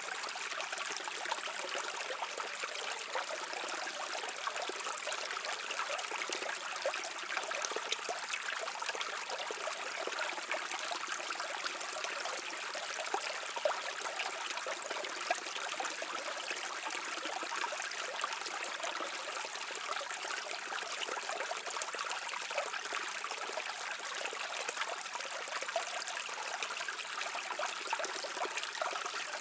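Shallow stream of water running and trickling over rocks, a steady bright splashing.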